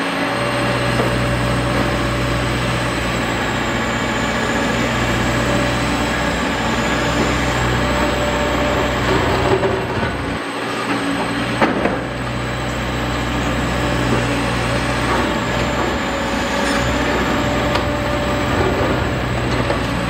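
Large hydraulic demolition excavator running: a steady diesel engine drone with a faint high whine that wavers in pitch, and two sharp knocks past the middle.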